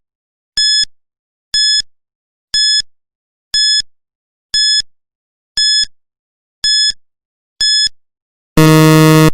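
Electronic quiz countdown timer: eight short, high beeps, one a second, then a long, loud, low buzzer near the end marking that the countdown has run out.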